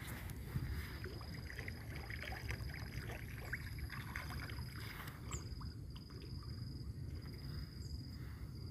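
Small splashes and slurps of Nile tilapia feeding at the pond surface, as scattered short ticks over a low wind rumble on the microphone. A thin, steady high whine runs through it with brief breaks.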